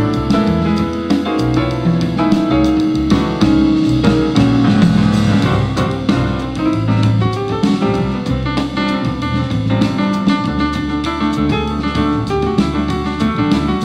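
Live jazz piano trio playing: grand piano, upright bass and drum kit, with a busy piano line over moving bass notes and drums.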